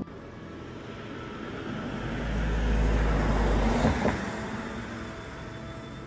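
A motor vehicle passing by with a deep rumble. It grows louder to a peak about two to four seconds in, then fades.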